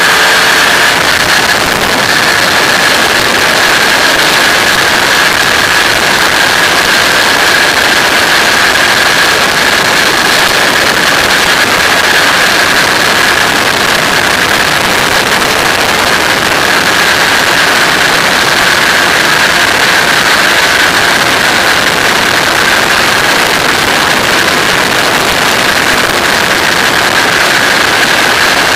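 Flex-wing microlight trike's engine and propeller running steadily in level cruise, one unchanging high drone over a constant rush of open-cockpit airflow.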